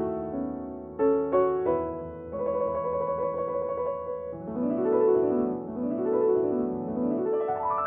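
Background piano music: struck chords, then from about halfway rising and falling runs of notes.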